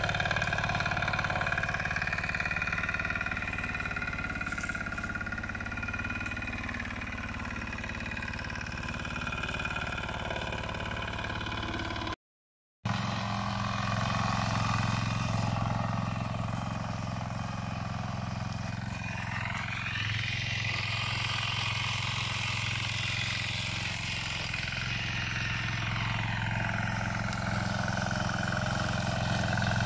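Walk-behind motor tiller (patpat) engine running steadily as the tiller works the soil. Its pitch rises for several seconds about two-thirds of the way through, then falls back. The sound cuts out for a moment a little after twelve seconds in.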